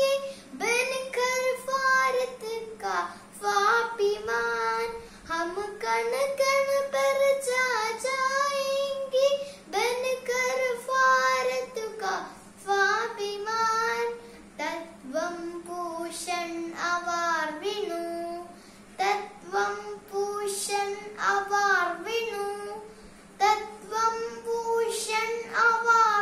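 Young girl singing a Hindi school prayer song solo, without accompaniment, in long held phrases.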